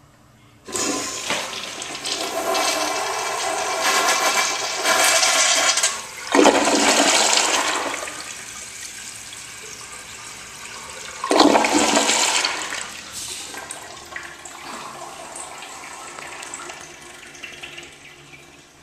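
Crane Plumbing Hymont toilet on a flushometer valve flushing. The water rush starts suddenly about a second in and surges twice more, at about six and eleven seconds, before tapering off near the end. The uploader calls it a weak flush with a double flush.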